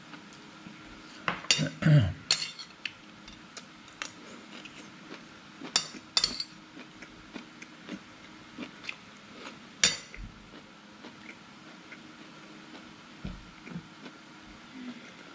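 Irregular knocks and clinks of a knife and kitchen utensils while raw chicken breast is cut up, loudest in a cluster about two seconds in, with a few sharper clinks later.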